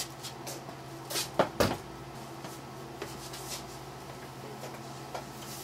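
A few wooden knocks and light taps as the hinged wooden rack that holds the Rodgers Trio organ's old oscillator boards is swung aside and handled; the loudest pair of knocks comes about a second and a half in. A steady low hum runs underneath.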